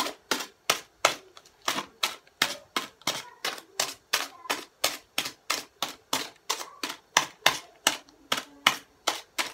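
A wooden toothpick is punched repeatedly through a plastic bag of broccoli, each jab a sharp crackling pop, at a steady rate of about three jabs a second.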